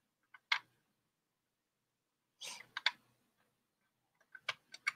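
A few faint, scattered clicks, bunched more thickly near the end, with a short breathy hiss about two and a half seconds in and dead silence between them.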